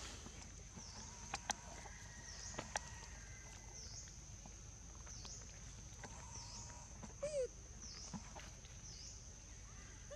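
Outdoor ambience: a steady high-pitched insect-like drone that pulses about once a second, a few light ticks in the first three seconds, and a short squeak falling in pitch about seven seconds in.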